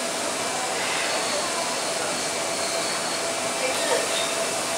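Steady rushing noise with faint voices in the background.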